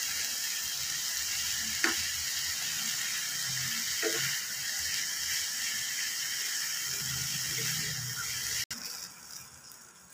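Vegetables and noodles sizzling in a hot frying pan as they are stirred with a slotted spatula, a steady hiss with a couple of light clicks. The sizzle cuts off suddenly near the end.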